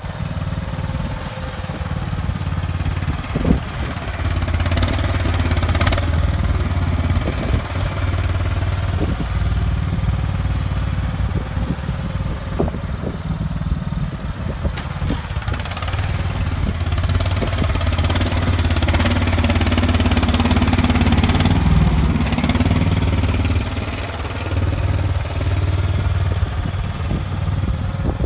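Cub Cadet XT1 lawn tractor engine running steadily while the tractor pushes heavy snow with its front plow blade, with a few short knocks scattered through.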